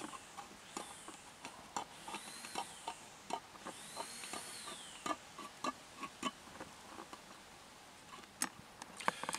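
A P38 can opener cutting around the rim of a steel tuna can: a string of faint clicks, one or two a second, as the blade is rocked through the lid, with a few short squeaky metal scrapes in the first half.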